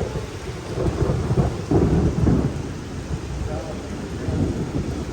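Rain with a low, uneven rumbling noise that swells about two seconds in.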